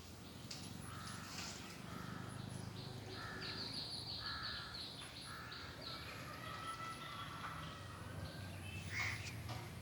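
Birds giving a run of short, harsh calls, several a second, with a few sharper calls near the end.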